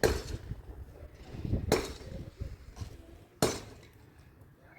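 Three heavy, evenly spaced blows of a hand tool, about every second and a half, striking the structure of an old house during demolition.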